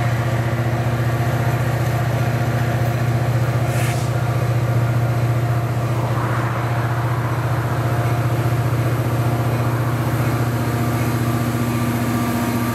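Diesel freight locomotive engine running steadily, a loud low drone that holds even throughout, with a short high click about four seconds in.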